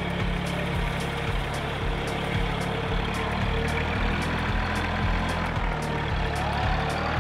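Iseki TG-series compact tractor's diesel engine running steadily as the tractor moves slowly off.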